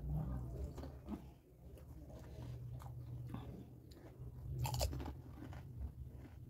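Crisp panipuri shells being bitten and chewed: faint crunching, with one louder crunch about two-thirds of the way in.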